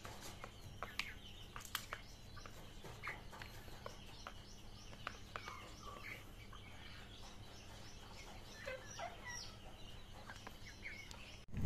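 Chickens faintly clucking while pecking at maggots in a plastic feed tray, with scattered light taps from their beaks.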